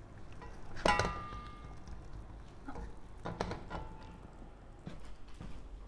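Kitchen utensils knocking against stainless steel cookware. A clear clink about a second in rings on briefly, followed by a few lighter knocks and one more short ring.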